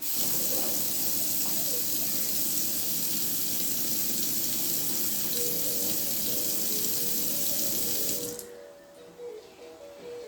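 Water from a tap running steadily into a sink, shut off about eight seconds in.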